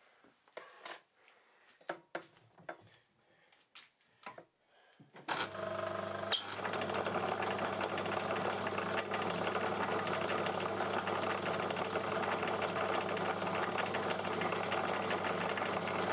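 Scattered clicks and knocks of handling at the lathe. Then, about five seconds in, the Myford Super 7 metal lathe is switched on and runs steadily with a low hum, spinning a steel rod in its three-jaw chuck. A single sharp click comes about a second after start-up.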